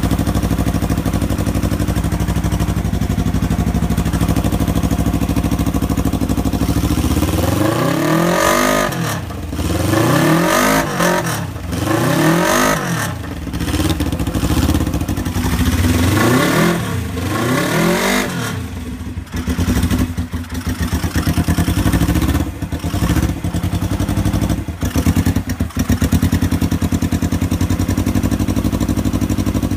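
Suzuki GSX250E's four-stroke parallel-twin engine, breathing through shortened aftermarket cross-over exhaust pipes with silencer baffles fitted, idling steadily. About seven seconds in it is revved up and back down about five times, then it falls back to an uneven, choppy idle.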